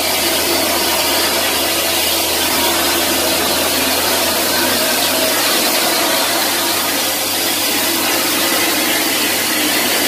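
Concrete mixer trucks running: a steady mechanical noise with a low hum underneath.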